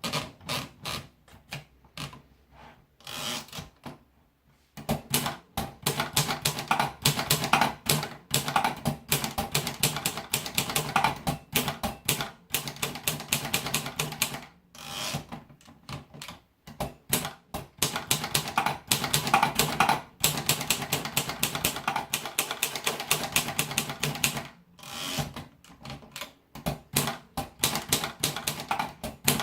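Olympia Progress manual typewriter being typed on: quick runs of key strikes, several a second, broken by a few short pauses.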